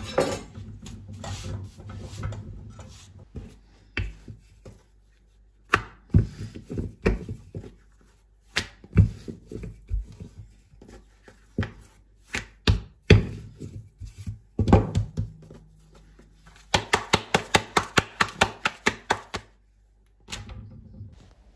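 Kitchen knocks and taps from handling a stacked samosa pastry sheet on a hot tawa: scattered single knocks, then a quick run of about seven taps a second for nearly three seconds.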